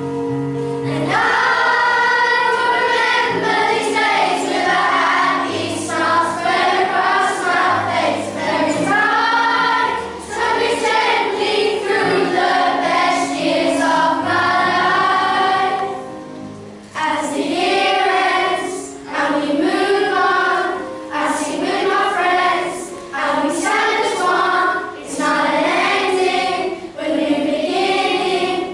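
A choir of primary-school children singing a song together in phrases, with brief breaths between lines.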